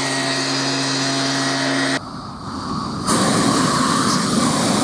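A steady motor drone with a hiss, which cuts off abruptly about two seconds in. About a second later a propane torch burner starts its loud, even roar.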